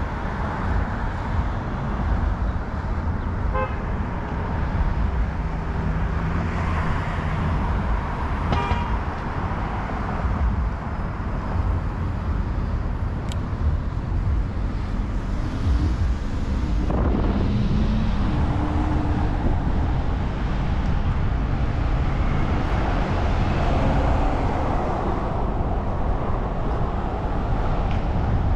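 Downtown street traffic heard from a moving bicycle, with a steady low rumble of wind on the microphone. A vehicle horn toots once or twice among the passing cars.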